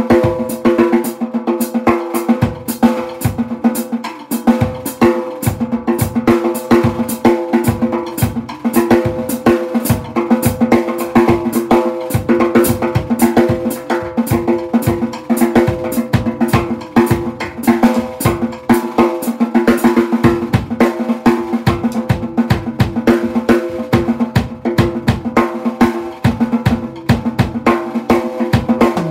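Drum kit played without a break: fast, dense strokes on the snare drum with bass drum and rimshots, the drums ringing steadily under the hits.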